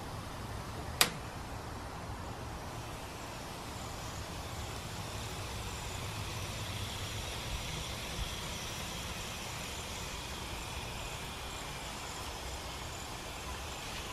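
Beef burger patties sizzling on the ribbed plate of a George Foreman electric grill, a steady hiss, with one sharp clack about a second in as the grill's lid is lifted.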